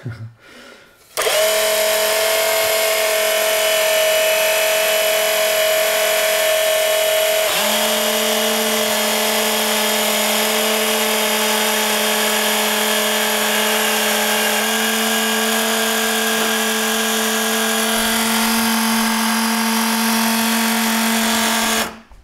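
Small electric motor of the model submarine's dive-tank system running steadily with a whine, blowing the tanks. It starts about a second in, shifts pitch twice and cuts off suddenly near the end. This is the T-Max low-power failsafe: main power was restored while the tanks were set to dive, so the system judged there was not enough power and blew the tanks.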